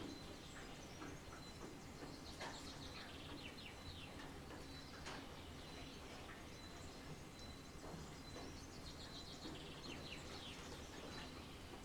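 Songbirds chirping over a soft, steady hiss of light rain, with quick falling chirps scattered through and a fast trill about nine seconds in.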